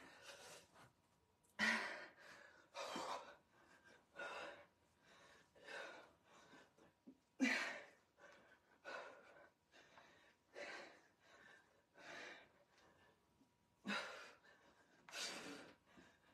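A woman breathing hard from exertion during a workout: short, sharp exhalations, about one every second or so.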